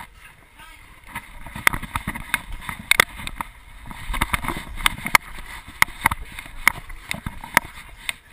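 Handling and rubbing noise from a GoPro strapped to a dog as it jostles about: irregular sharp clicks and knocks over a low, uneven rumble.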